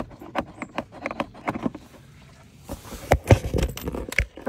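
Handling of the plastic air filter housing in a car engine bay: a run of scattered plastic clicks and knocks, with a louder cluster of knocks and low thumps about three seconds in.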